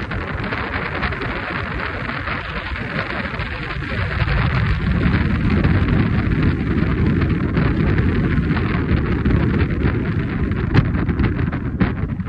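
Wind buffeting the microphone: a rough, gusty rush that grows deeper and louder about four seconds in.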